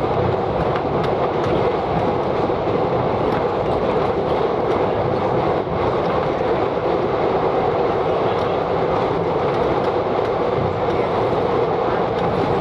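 1920s NSW CPH 'Tin Hare' railmotor running steadily along the track, heard from on board, with faint irregular clicks from the wheels going over the rail joints.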